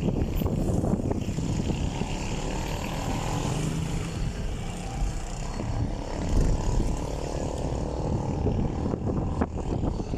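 Engine and road noise from a vehicle driving along a street, a steady low rumble, with a few short knocks near the end.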